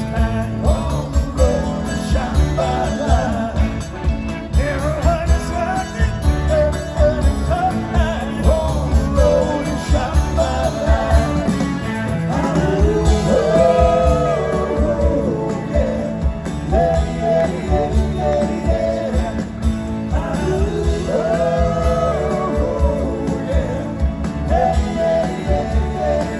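Live rock band playing, with a lead singer and backing vocals over a steady drum beat.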